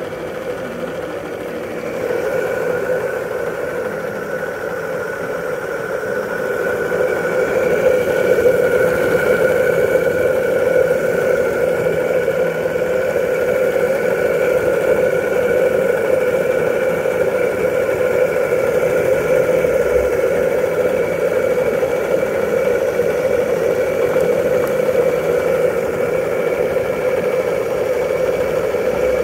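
Live-steam plant of a model steam launch running under test: a steady mechanical running sound from its small brass steam engine and boiler. It grows louder about two seconds in and again around seven seconds in, then holds steady.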